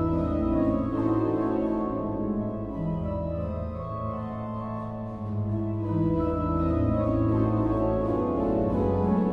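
Naber pipe organ playing sustained chords over held bass notes. The music softens between about two and five seconds in, then swells again.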